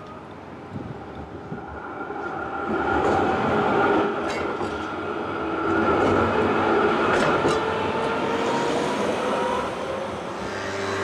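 Adtranz Class R3 low-floor tram passing close by on street track. Its electric drive gives a whine that glides in pitch, and the wheels give a few sharp clicks. The sound swells to a peak in the middle and fades, and a car passes near the end.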